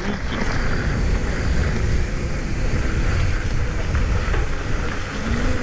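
Wind buffeting a helmet- or chest-mounted action camera's microphone while riding a mountain bike at speed, with the tyres running steadily over a gravel and leaf-covered dirt trail.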